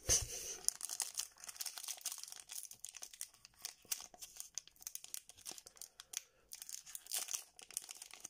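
Foil wrapper of a Pokémon trading card booster pack being torn open and crinkled by hand: a continuous run of sharp crackles, loudest right at the start.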